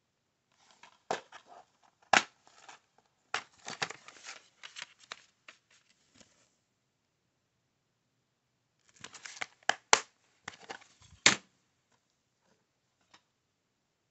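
Plastic DVD case being handled, opened and then closed: rustling and sharp plastic clicks and snaps in two clusters, the first starting about half a second in and the second about nine seconds in.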